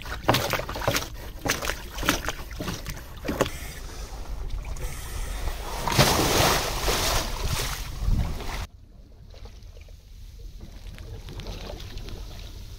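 Repeated scraping strokes of a wooden scraper against a boat's hull below the waterline, knocking off shells, with water sloshing. About nine seconds in the sound cuts abruptly to a quieter, steady wind and water noise.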